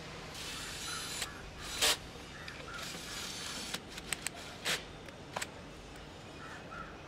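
A handful of short, sharp clicks and knocks scattered over a low steady hiss, the loudest about two seconds in, with a quick cluster of smaller clicks around four to five and a half seconds in.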